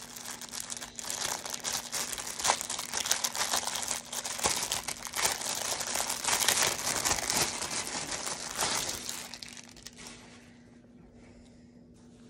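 Clear plastic packaging bag crinkling and crackling as it is pulled open by hand. It goes on without a break and dies away near the end.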